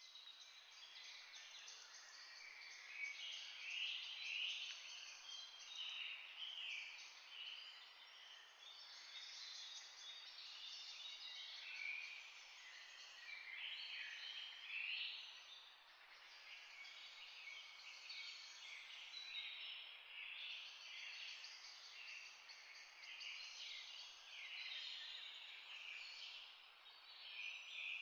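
A faint, dense chorus of many small birds chirping and trilling over one another without pause.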